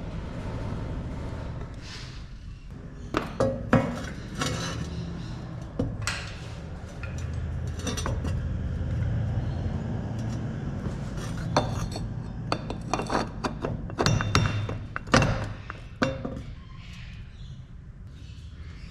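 Scattered metal clinks and knocks of steel parts handled and fitted: the front drive shaft's flange going onto the transfer case output flange and its washers and nuts being put on.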